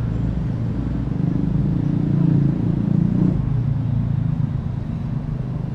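Road traffic: a motor vehicle's engine rumbles past close by, growing loudest a couple of seconds in and then easing, over a steady low drone of city traffic.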